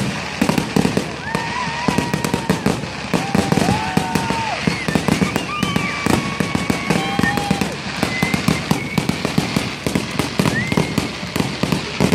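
A fireworks display: a rapid, continuous barrage of bangs and crackling, with several short whistling tones gliding up and down over it.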